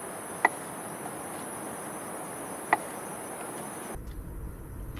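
Crickets trilling steadily in a high, even band, which turns fainter about four seconds in. Two sharp taps of a chef's knife through cherry tomatoes onto a wooden cutting board, one about half a second in and one near three seconds.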